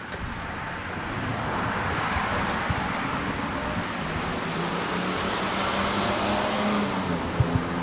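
A motor vehicle going by: a rushing noise that swells, with a steady engine hum joining about halfway through. A couple of small knocks come near the end.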